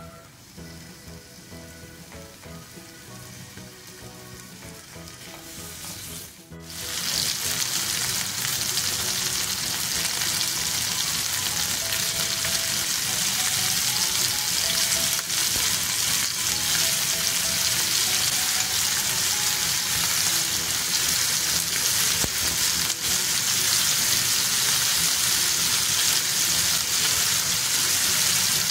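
Food frying in a hot pan, a loud steady sizzle that starts abruptly about six and a half seconds in, after a quieter stretch of background music.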